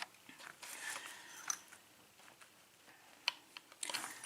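Faint handling of small metal lock parts: a few light, separate clicks and some soft rustling, with a short cluster of clicks near the end.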